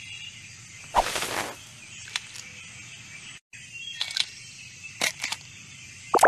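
Cartoon sound effects of a cocoon cracking open: a series of short cracks and pops about a second apart, over a steady outdoor nature background that cuts out for a moment midway.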